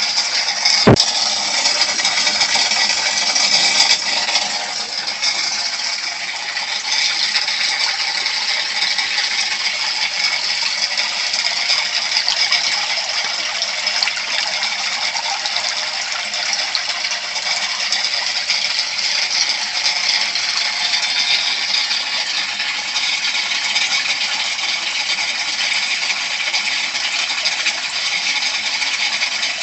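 Steady stream of water splashing from the PVC exhaust pipe of an aquaponics loop siphon into the tank, the falling water aerated and bubbling. A single sharp click comes about a second in.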